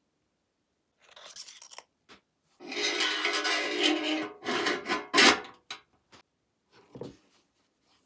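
A steel axle and wheel being worked through the holes in a toy truck's sheet-metal frame brackets: a short scrape, then about two seconds of metal scraping and rubbing, followed by a sharp metallic click and a softer knock.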